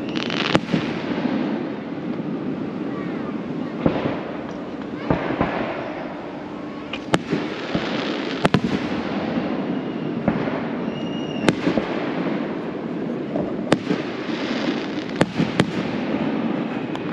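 Aerial fireworks shells bursting: more than a dozen sharp bangs at irregular intervals, some followed by a crackling rush, with the occasional brief whistle.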